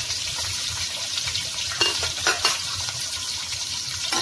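Chopped onion, garlic and red chillies frying in hot oil in a metal pot, a steady sizzle. There are a few sharp knocks about two seconds in.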